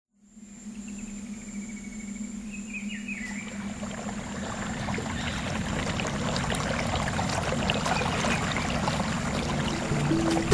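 A rushing, hissing noise that slowly swells louder over a low steady hum, with a brief wavering whistle about three seconds in.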